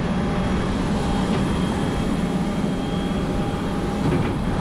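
Aircraft engine noise: a steady drone with a faint high whine held through.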